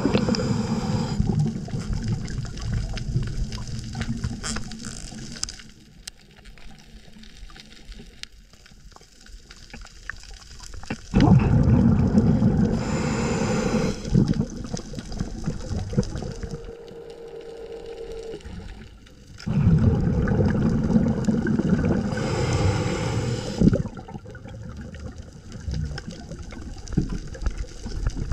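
Scuba diver breathing underwater through a regulator: three long rushes of exhaled bubbles, a few seconds each, at the start, about eleven seconds in and about twenty seconds in, with quieter stretches between.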